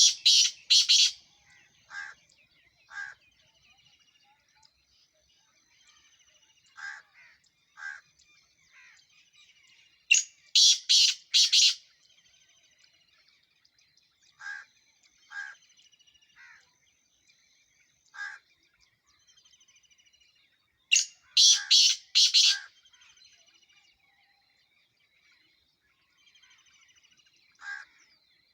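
Black francolin calling: three loud phrases of three to four short notes, about ten seconds apart, with fainter single notes between. Small birds chirp faintly throughout.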